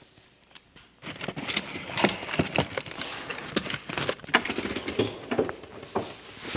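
Packages of cookie dough being handled, a busy run of rustling with many small knocks and clicks that starts about a second in.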